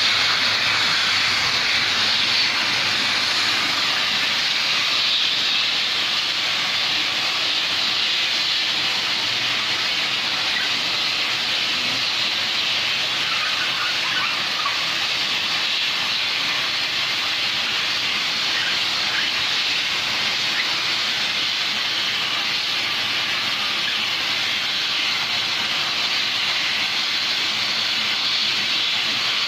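Tarpaulin seaming machine running with a steady hiss.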